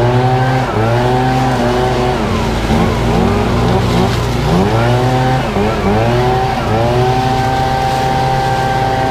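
ECHO PB-8010 backpack leaf blower's two-stroke engine running hard, its pitch dipping and climbing back several times as the throttle is eased and reopened, then held steady near the end, with the rush of air from the nozzle.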